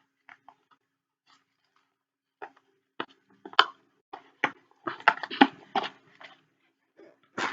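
Handling of plastic items and packaging: a series of sharp clicks and knocks, getting busier after a couple of seconds, with crinkling in between.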